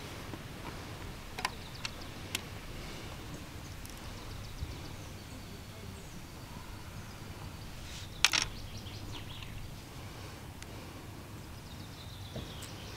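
Steady, quiet outdoor background noise with faint bird calls, and a few small clicks from hands handling a hard plastic bait container and a boilie needle while threading it onto a hair rig; the sharpest click comes about eight seconds in.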